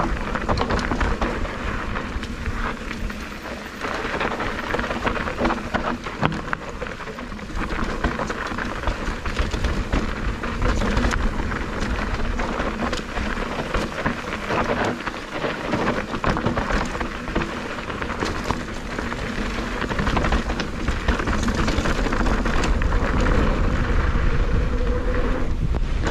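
Mountain bike riding fast down a dry dirt trail: knobby tyres crunching and skidding over loose dirt and gravel, with frequent clicks, rattles and knocks from the bike over bumps, over a steady low rumble of wind on the microphone. It gets louder over the last several seconds as the bike speeds up on a straight.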